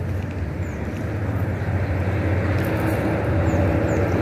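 A motor engine running steadily and growing louder, with faint bird chirps.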